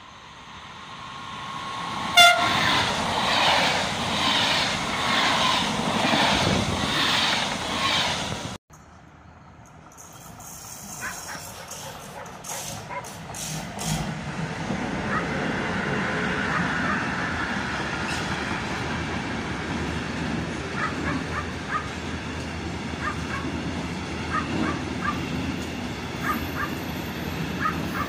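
A train passes close and loud, with a sharp spike about two seconds in, and the sound cuts off abruptly after about eight seconds. Then an electric freight locomotive hauling grain hopper wagons runs past steadily, the wagon wheels clicking at regular intervals over the rail joints.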